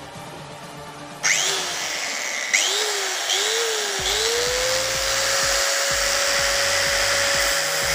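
Angle grinder with a cutting disc switched on about a second in, given a couple of short bursts that spin up and slow down, then run up to full speed and held there as one steady whine, the disc spinning freely just off the capacitor it is about to cut.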